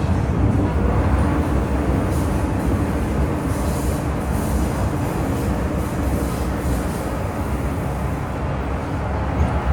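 MTR M-Train electric multiple unit heard from inside the car while running: steady low rumble of wheels on rail, with a faint high hiss that brightens for a few seconds mid-way.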